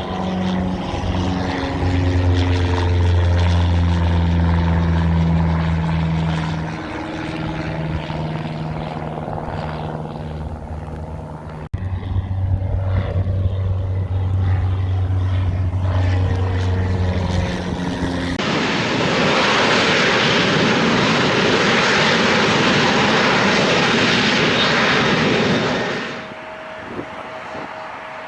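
Small propeller airplane engine drone: a deep steady hum with overtones that shift in pitch, cut together from separate clips. About eighteen seconds in it gives way to a loud even rushing noise for some eight seconds, then drops to a quieter hum with a faint steady tone.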